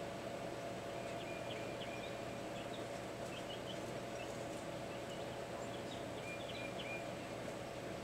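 A small songbird singing faint, short high twittering phrases in three bouts: about a second in, around three seconds, and again around six seconds. Under it runs a steady outdoor background hiss with a constant low hum.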